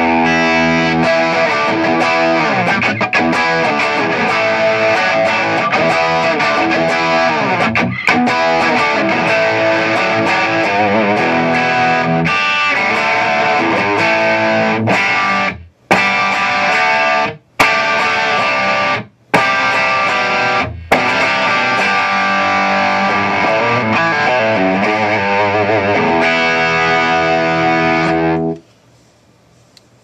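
Gibson Les Paul electric guitar through a Mesa/Boogie Triaxis preamp, Mesa 20/20 power amp and Rectifier cabinet on the overdriven Lead 1 Yellow channel, playing a rock riff with slides. Around the middle the riff breaks into four short stop-start cuts to silence. About a second and a half before the end the playing stops, leaving faint amp hiss.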